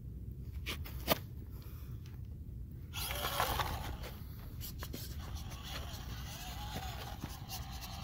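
A 1/24-scale Axial SCX24 RC crawler driving over dry dirt and rock: its RC4WD Scrambler tyres scrape and crunch on the ground, and the small electric motor gives a faint wavering whine, over a steady low wind rumble on the microphone. There is a sharp click about a second in, and the scraping grows louder from about three seconds in.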